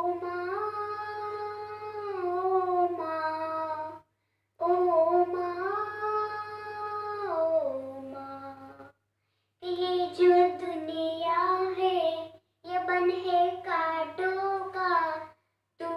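A boy singing a Hindi song unaccompanied into a handheld microphone, in four long phrases of held, gliding notes with short silent breaks between them. A low steady hum sits under the voice and stops whenever the singing stops.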